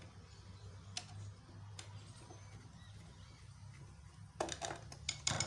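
Screwdriver clicking and scraping against a metal screw as it works the motor-mounting screw of a sewing machine loose. A few sparse clicks come first, then a quick run of louder clicks near the end, over a steady low hum.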